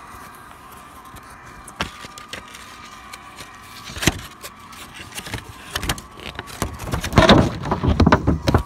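Handling noise right against the microphone: a couple of sharp clicks, then rustling and scraping that gets louder and denser in the last three seconds and stops abruptly.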